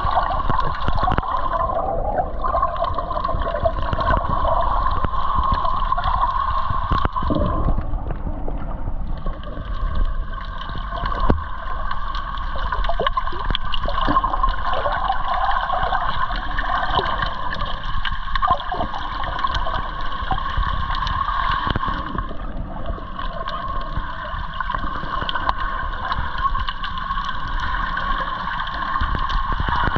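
Underwater sound of gurgling, sloshing water over a steady drone.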